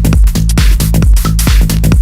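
Electronic dance music with a fast, steady beat over a heavy bass line.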